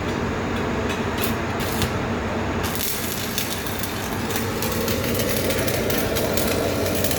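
Electric welding arc crackling over a steady low machine hum: a few separate crackles at first, then a continuous dense sizzle from about a third of the way in.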